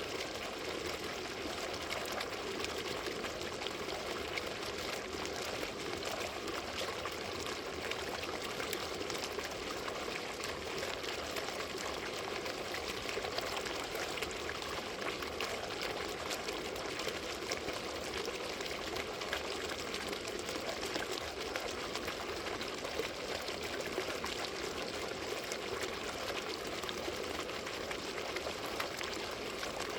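Water fountain running steadily, water pouring and splashing into a basin with a continuous trickling patter.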